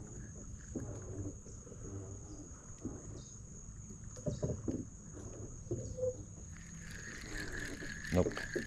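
Quiet lakeside ambience: a low wash of water and air with a thin steady high tone. Near the end come a few clicks and knocks as the spinning rod and reel are picked up and handled.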